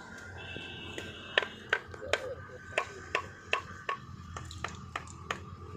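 A hand tool striking a hard surface over and over: about a dozen sharp, ringing taps, roughly two to three a second.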